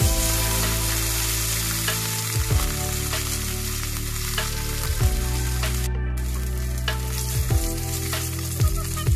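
Small fish sizzling steadily as they fry in a little oil in a steel kadai. A slotted steel skimmer scrapes and taps against the pan a few times as the fish are turned.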